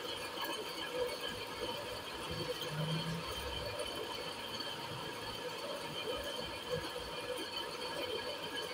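Steady room noise with a faint, continuous high-pitched whine.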